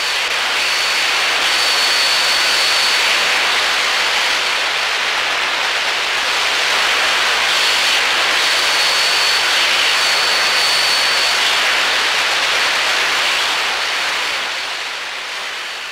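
Steady rushing hiss, like static or jet-engine noise, with a faint high-pitched whistle coming and going; it grows quieter near the end.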